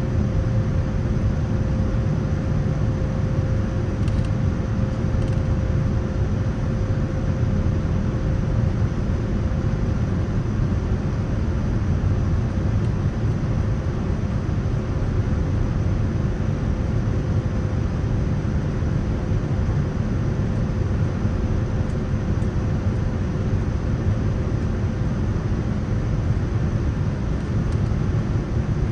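Steady cabin noise of a Boeing 787-9 airliner in flight: an even rush of airflow and engine noise, heaviest in the low end. A faint steady tone in it fades out about two-thirds of the way through.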